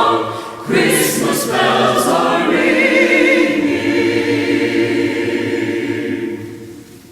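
Mixed church choir singing a long held chord at the end of a carol's refrain, with a fresh entry about a second in, then the chord fading away near the end.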